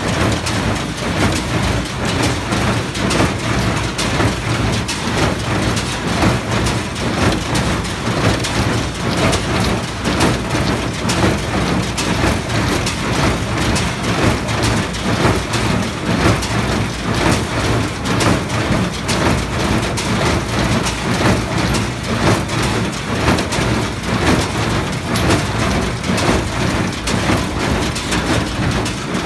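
New Holland small square baler and its tractor running: a steady engine drone under the clatter of the baler's mechanism, pulsing at a regular beat.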